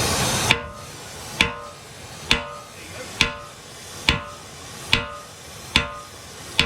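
A mash hammer striking a steel round-bar drift against a seized quick-attach pin, about eight ringing metal blows, roughly one a second, to drive the pin out. A steady hiss stops just before the first blow.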